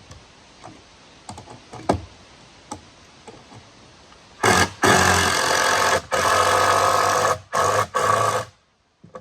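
A few knocks and taps of wood being handled, then about four seconds in a power drill-driver runs in several bursts with short pauses, driving screws into the wooden wall framing.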